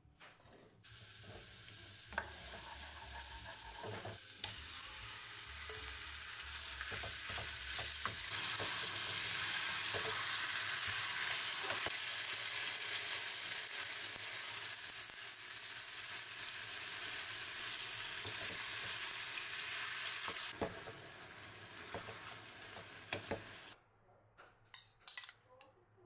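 Chicken pieces sizzling as they fry in a pan, with a wooden spatula now and then knocking and scraping as they are turned. The sizzle starts about a second in, grows louder, and stops suddenly near the end.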